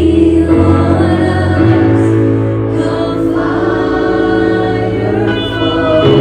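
Contemporary worship music: group vocals singing sustained lines over held chords.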